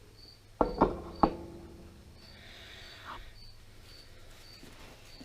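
Three sharp metallic clanks in quick succession about a second in, the last one ringing briefly. Behind them a faint, high, one-pitch chirp repeats about every half second.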